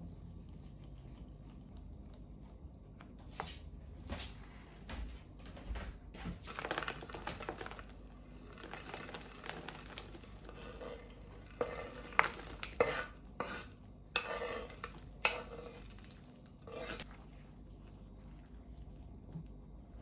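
Silicone spatula stirring thick batter in a plastic mixing bowl, with scraping and light knocks against the bowl. A little past the middle comes a run of sharp clacks and taps as chopped chocolate is scraped off a wooden cutting board into the bowl; this is the loudest part.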